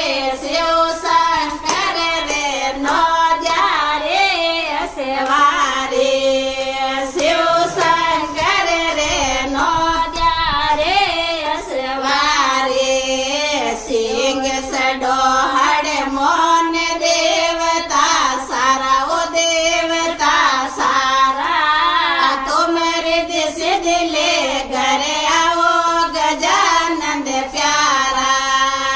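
Women singing a Marwari devotional bhajan to Shiva together in unison, clapping their hands in a steady rhythm to keep time.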